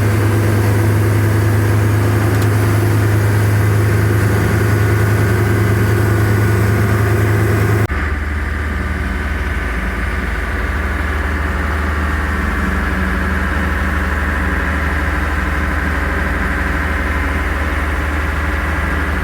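Fishing boat's engine running with a steady low drone. About eight seconds in the sound changes abruptly to a slightly quieter, lower drone.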